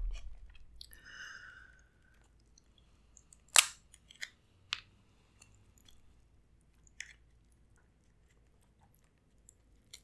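King crab leg shell cracking and snapping as it is pulled apart by hand, a few sharp cracks with the loudest about three and a half seconds in, between faint close-up chewing sounds.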